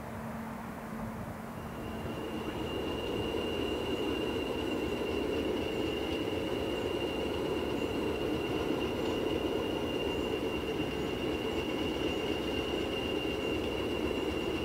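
A train running, with a rumble that builds over the first few seconds and then holds steady, under a steady high-pitched whine.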